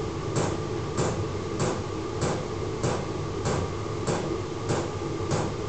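Fuel pump of a 12 V diesel heater knocking at a steady rate a little under twice a second, over the heater's steady running hum.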